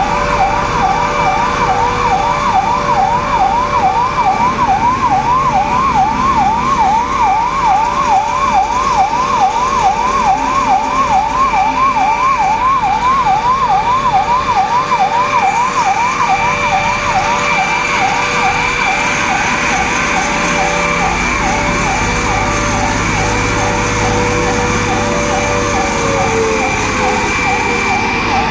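Emergency sirens sounding: one warbles rapidly up and down, about three times a second, over a second steady siren tone that begins to fall in pitch near the end.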